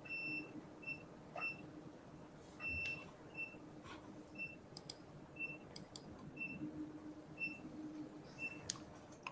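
Short electronic beeps from medical equipment, roughly one a second and all at the same pitch, over a faint steady hum, with a few brief clicks in the second half.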